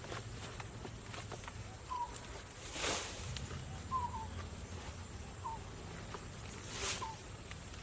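Short bird chirps every second or two over a faint steady hum, with two brief swishing noises, one about three seconds in and one near the end.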